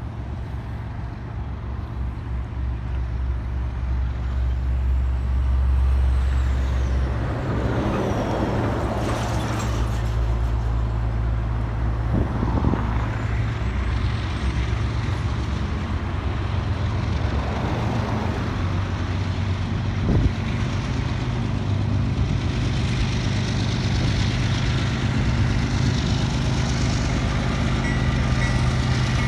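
Union Pacific diesel locomotives running under power as they lead a freight train closer: a steady low engine rumble that grows louder over the first several seconds, then holds.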